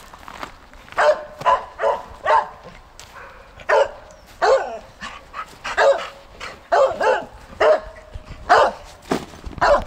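Finnish Lapphunds barking, a run of over a dozen short barks at irregular intervals.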